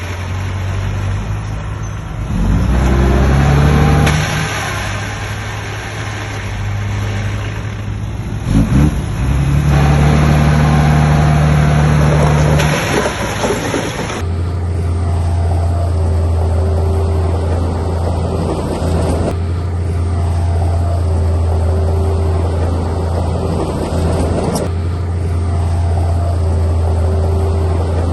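Heavy construction machine's diesel engine running under load. It revs up twice in the first half, then from about halfway runs at a steady low drone.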